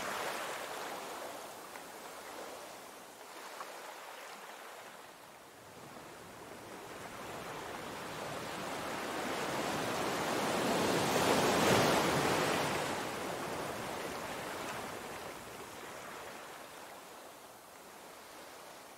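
Surf washing against a rocky shore: a steady rush of water that swells to its loudest a little past the middle, then ebbs away.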